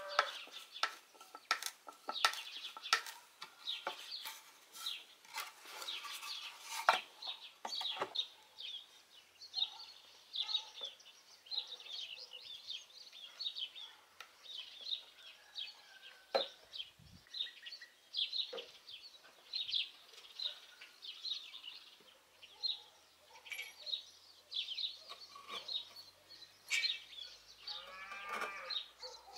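Birds chirping over and over in the background, with scattered knocks and clicks of wooden boards being handled and screwed together. Near the end comes a louder bird call that slides down in pitch.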